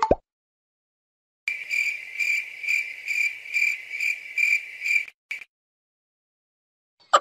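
Cricket chirping sound effect: a high, steady trill pulsing about twice a second for roughly three and a half seconds, then stopping. It opens with the last moment of a cartoon bounce effect.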